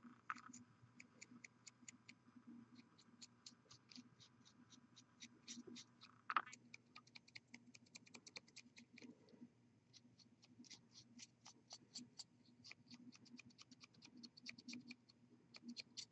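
Near silence: faint, rapid, irregular clicking over a low steady hum, with a single louder knock about six seconds in.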